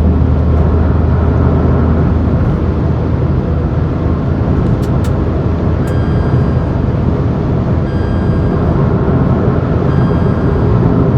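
Steady in-cabin noise of a Tata Tigor's 3-cylinder petrol engine cruising at about 110–120 km/h, a dense mix of engine, tyre and wind noise. A low hum fades out in the first couple of seconds, and faint short beeps sound about every two seconds from about six seconds in.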